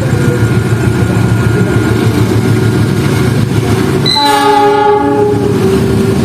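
Diesel locomotive rumbling past. About four seconds in it sounds its multi-tone horn for about two seconds: the Semboyan 35 horn signal.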